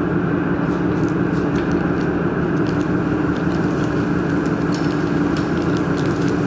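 Steady, loud machinery hum, with scattered light clicks and taps over it.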